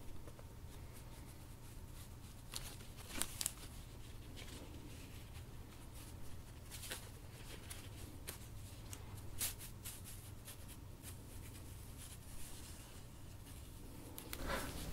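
Faint rustling and crinkling of old paper as fingers open an envelope and slide out its contents, with a handful of brief crisper rustles.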